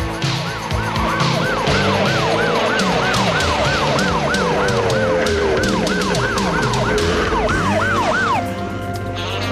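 A siren warbling fast and regularly, rising and falling about three times a second over driving action music with drums and a bass line; the siren stops about eight seconds in while the music carries on.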